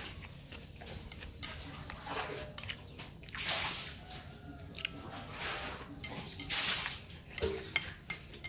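Eating rice noodles in fish-gravy soup: several short wet slurps and sips, with scattered light clicks.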